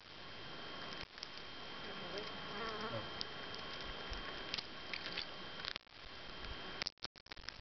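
A flying insect buzzes past close to the microphone about two to three seconds in, its pitch bending up and down as it goes by. Scattered small clicks come from a chipmunk handling and husking sunflower seeds, over a steady faint hiss.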